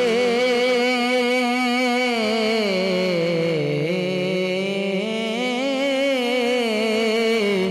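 A man's solo voice singing an Urdu naat/salaam unaccompanied, drawing out one long wavering melismatic note that sinks lower midway and then climbs back up.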